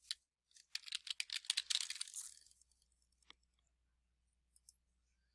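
Typing a short word on a computer keyboard, a quick run of keystrokes lasting about two seconds, followed by a single click and then two clicks in quick succession near the end, like a mouse clicking.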